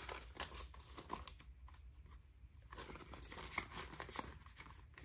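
Paper dollar bills rustling and a clear plastic cash envelope crinkling as a few bills are slid into it, with scattered light ticks.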